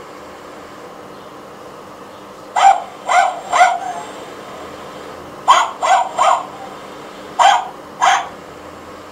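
Battery-powered toy terrier sounding short recorded yaps: a group of three, another three, then two.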